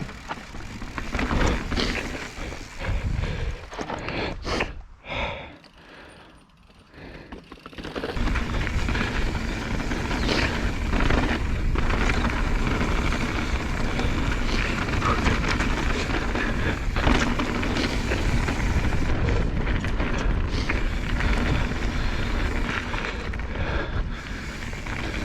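Mountain bike riding over a rocky trail: tyres rumbling over rock and dirt with frequent knocks and clatters from the bike. There is a brief quieter lull about five seconds in, then steady riding noise.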